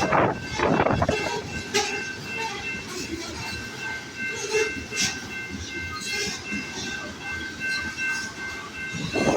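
Loaded grain hopper cars of a freight train rolling past, wheels clacking over the rail joints, with a faint steady high-pitched wheel squeal from a couple of seconds in.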